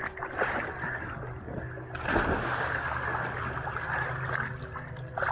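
Pool water sloshing and splashing right at the camera, which is held at the surface of a swimming pool, with a louder splash burst about two seconds in.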